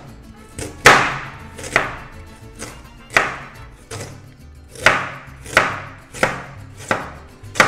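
A kitchen knife slicing a raw carrot into rounds on a plastic cutting board: about nine crisp cuts, irregularly spaced, most under a second apart.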